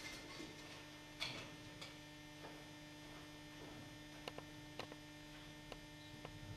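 Faint steady electrical hum, with a soft knock about a second in and several faint scattered clicks later on.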